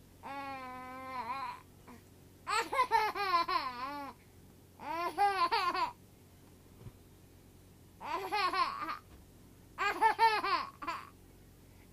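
A baby laughing in five separate bursts with pauses between them. The first burst is a longer held note; the others are quick runs of high rising-and-falling laughs.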